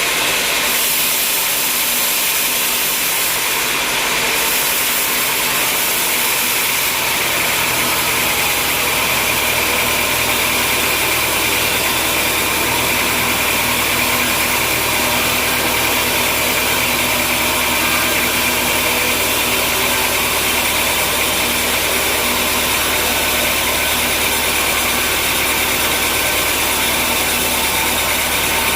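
Sawmill machinery running steadily, a loud mechanical noise with a hiss high up; a low hum joins about seven seconds in.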